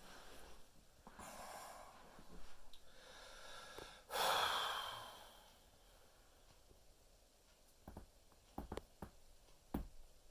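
Heavy breathing and a loud sigh-like exhale about four seconds in, followed near the end by several short, sharp pops of joints being cracked.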